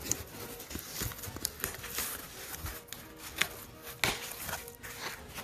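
Cardboard shipping box being handled: flaps rustling, scraping and knocking in short bursts as hands open the box and reach in for the book, with the sharpest knocks about a second, two seconds and four seconds in. Faint background music plays underneath.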